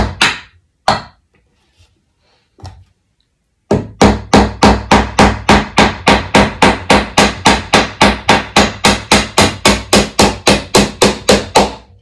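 Hammer driving a nail into a wooden birdhouse roof: two blows at the start, a short pause, then from about four seconds in a steady run of quick blows, about three a second.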